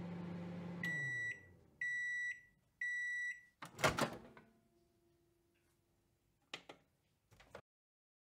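Microwave oven: the running hum winds down about a second in, then three long, high beeps about a second apart as the timer ends, then the door pops open with a clunk just before four seconds in. Two faint clicks follow near the end.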